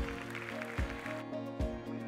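Background music with held chords and a steady low beat; the bright high end drops out about a second in.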